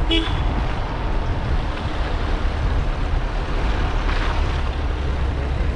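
A vehicle driving along a hill road: a steady low rumble of engine and road noise.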